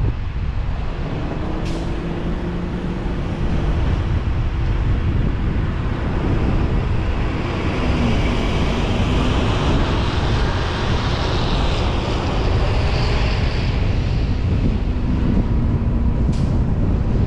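Car driving through city streets: a steady low rumble of road and wind noise, with a hiss that swells and fades in the middle. A faint hum comes and goes, and there are a couple of short clicks.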